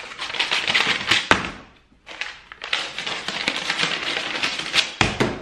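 Spiral paper wrapper of a refrigerated cinnamon-roll dough can being peeled off, a crackling tear in two long stretches with a short break about two seconds in.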